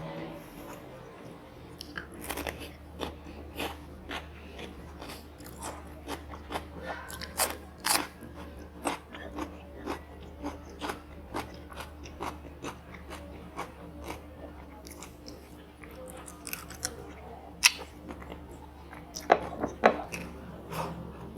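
A person biting and chewing crunchy fried food with the mouth close to the microphone: many irregular sharp crunches and wet clicks.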